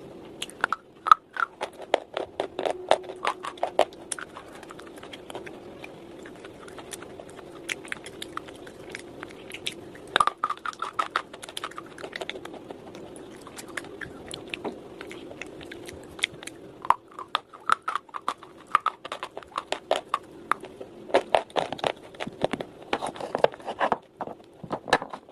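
Slate bar being bitten and chewed: sharp, crackling crunches that come in clusters, with quieter chewing between them, over a steady low background hum.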